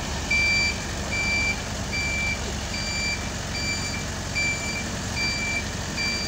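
Reversing alarm on a crawler combine harvester, beeping evenly about once every 0.8 s as the machine backs up, over the steady low running of its engine.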